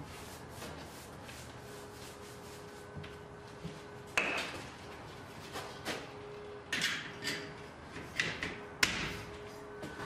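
Faint brushing strokes on stone cladding, then a series of sharp knocks and rattles as a louvred vent grille is handled and pushed into its opening in the stone fireplace wall, the sharpest knock about nine seconds in.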